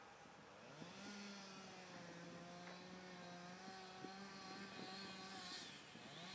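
Faint distant chainsaw revving up about a second in and holding a steady high note for several seconds, then dropping off near the end and revving up again.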